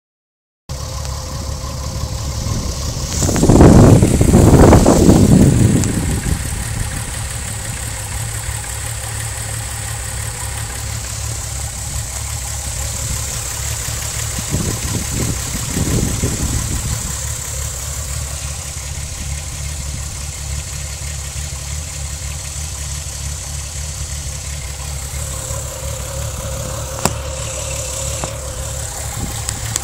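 VW 12-valve VR6 engine idling roughly, shaking and not running smoothly: the misfire the owner traces to cylinders 2, 3 and 6. About three seconds in the sound swells much louder for a couple of seconds, with a smaller swell around fifteen seconds in and a single sharp click near the end.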